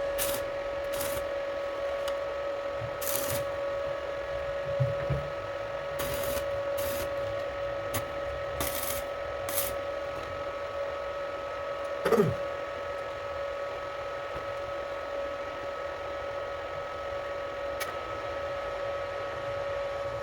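A small electric motor running at a steady pitch, with short high scraping hisses over it, winding down as it stops at the very end.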